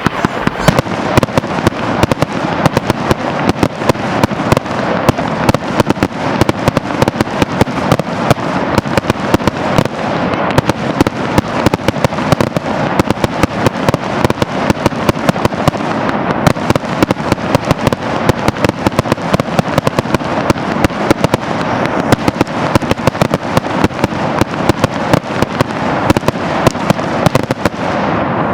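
Fireworks going off in rapid succession: a dense, continuous crackle of sharp reports, many per second.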